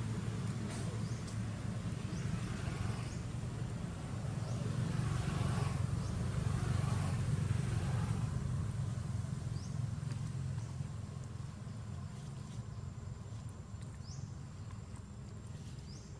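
Low engine hum of a passing motor vehicle, growing louder toward the middle and then fading away, with a few faint short high chirps above it.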